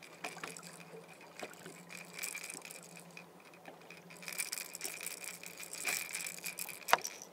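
A just-caught catfish being handled and unhooked in an aluminium boat: scattered small clinks, rattles and wet handling noises, busier in the second half, with one sharp click near the end. A steady low hum runs underneath.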